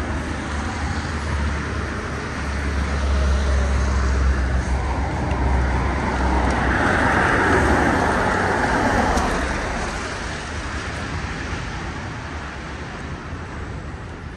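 Road traffic on a wet street. A vehicle passes close, its engine rumble and tyre hiss swelling about a third of the way in, peaking past the middle, then fading away.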